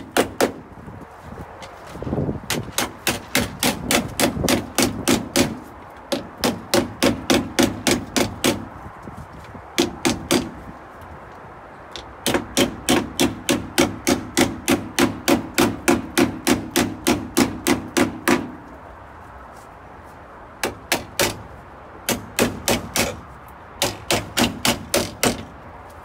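Hammer tapping a small piece of sheet steel against a car's windshield pillar to shape the patch to the pillar's contour. Quick sharp strikes, about three or four a second, come in runs of a few seconds with short pauses, the thin metal ringing under each run.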